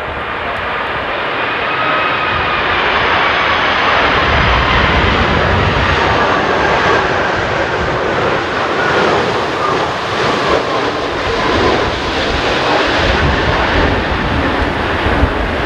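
Airbus A330-343's Rolls-Royce Trent 700 engines on final approach passing close by: a loud, steady jet rush that builds over the first few seconds, with faint whining tones gliding slowly in pitch.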